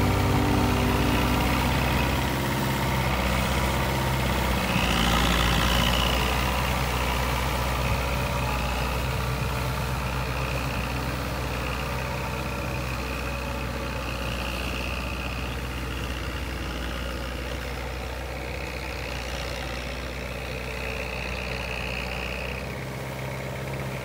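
Fiat 80-66 DT tractor's diesel engine running steadily as it works a flooded paddy with cage wheels and a rotavator. The sound fades gradually as the tractor moves away.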